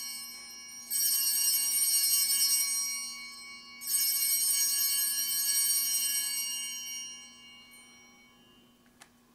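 Altar bells rung at the elevation of the consecrated host: a ring dying away, then two fresh rings about three seconds apart, each a bright jangle that fades, the last trailing off over a few seconds. A faint click near the end.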